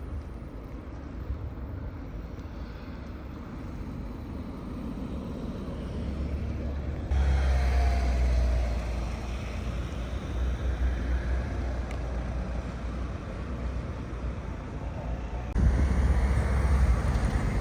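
Outdoor city street ambience in a snowstorm: a steady low rumble with a noisy wash above it. It jumps suddenly louder about seven seconds in and again near the end.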